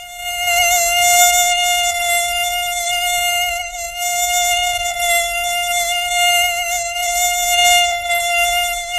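Mosquito in flight, its wingbeats making a continuous high-pitched whine that wavers slightly in pitch and swells and fades in loudness.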